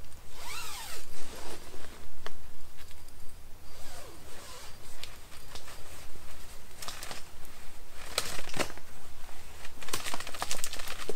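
Zipper on a DD camping hammock's mosquito net being pulled, along with nylon fabric rustling and handling noises. The sharpest bunches of zipper strokes come about eight seconds in and again near the end.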